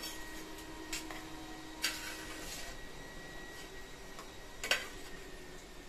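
Cooked rice being mashed by hand in an aluminium pressure cooker pot: faint soft squishing with three sharp little clicks against the pot, spread out over a few seconds.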